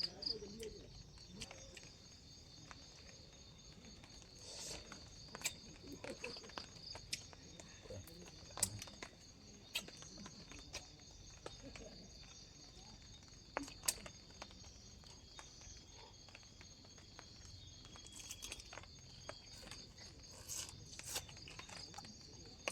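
Crickets and other insects chirring steadily, with scattered clicks and knocks of things being handled close by.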